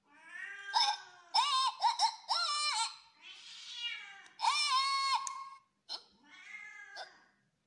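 A domestic cat meowing over and over, a string of high-pitched meows with short gaps between them, some sliding in pitch and some held level.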